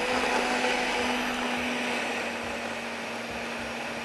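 Anex countertop blender running at speed, its motor holding a steady hum as it churns peanut satay sauce with coconut milk and whole roasted peanuts into a paste. It eases slightly in loudness as it runs.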